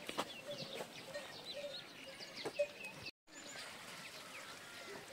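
Chickens and small birds calling: many quick, high, falling chirps with a few low clucks, and a sharp click about two and a half seconds in. The sound cuts out for a moment just after three seconds, then fainter chirping goes on.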